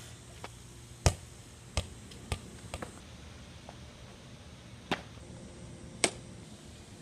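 A ball bouncing and striking the basketball hoop: several sharp single knocks at uneven intervals. The loudest comes about a second in, another strong one near the end.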